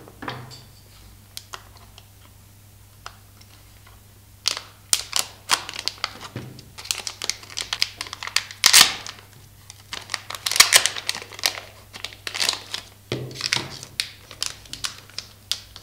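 Metallized anti-static bag crinkling as it is handled and opened and an Arduino Uno board is drawn out: a few light clicks at first, then a dense run of crackles from a few seconds in until near the end.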